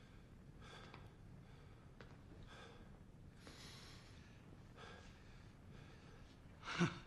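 A man breathing heavily and faintly, several breaths in and out, then a short, louder voiced gasp near the end.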